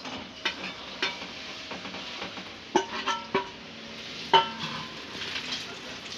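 A metal spatula stirs chopped dates in a metal kadhai of hot ghee, scraping and clinking against the pan over a light sizzle. A handful of sharp clinks ring out briefly, the loudest a little over four seconds in.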